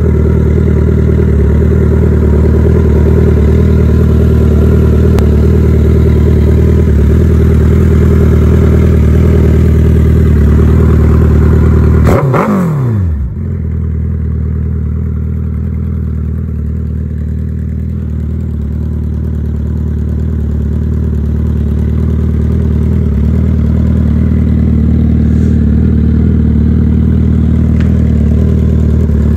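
Suzuki Hayabusa's inline-four engine idling steadily. About twelve seconds in, a quick falling sweep cuts through, and after it the running sound is duller.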